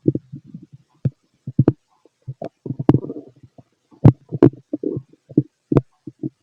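Stomach growling heard through a stethoscope: a rapid, irregular run of short bubbling gurgles with a few sharp pops, the loudest about four seconds in.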